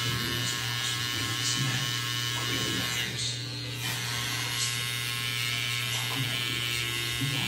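Cordless T-blade hair trimmer buzzing steadily as it is worked along the hairline, cutting in a design.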